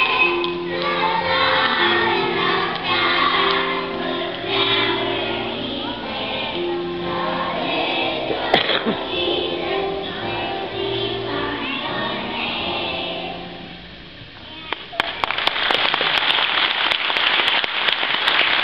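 Children's choir singing a song with instrumental accompaniment; the song ends about two-thirds of the way through. After a brief lull, audience applause breaks out.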